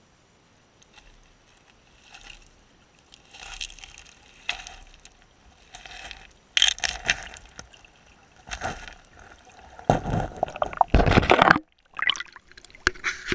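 Water sloshing and splashing around an underwater camera housing in a shallow river, in irregular bursts that grow louder. The loudest splashing, about ten to twelve seconds in, comes as the camera is lifted up through the water surface.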